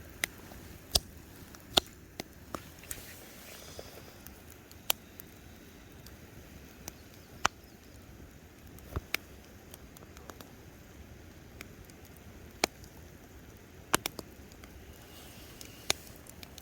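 Campfire crackling: sharp, irregular pops of burning wood, a dozen or so scattered at uneven intervals over a faint steady hiss.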